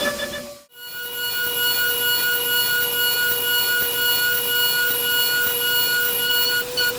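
CNC milling machine spindle cutting metal: a steady, constant-pitch whine over a hiss of cutting noise. It breaks off sharply about half a second in and resumes a moment later at a slightly lower pitch.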